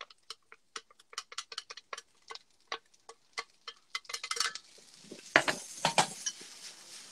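Light clicks of a utensil against a dish and pan as pieces of pork are put back into a frying pan of daikon, a few clicks a second; about four and a half seconds in the pan starts sizzling as the pork hits it, with two louder clatters of utensil on pan.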